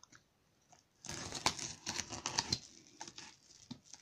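Small box cutter scraping and slicing through the plastic wrap of a cardboard parcel: a scratchy, clicking scrape that starts about a second in and lasts about a second and a half, then a few fainter scratches.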